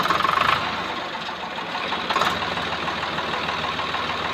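Swaraj 735 tractor's three-cylinder diesel engine running at idle with a steady, even rhythm, with two brief louder bursts, one at the start and one about two seconds in.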